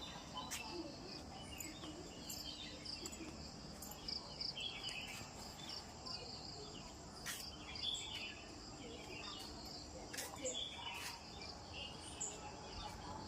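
Crickets chirring steadily, with birds chirping here and there over them and a few sharp clicks.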